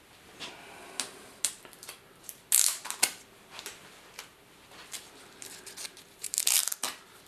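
Thin plastic sheeting crinkling and rustling as it is handled, in irregular crackles with the loudest bursts about two and a half to three seconds in and again near the end.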